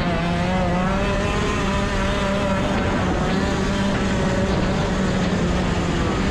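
A racing kart's engine running hard under load as the kart speeds up along a dirt straight, a steady engine note with wind noise rushing over the helmet-mounted microphone.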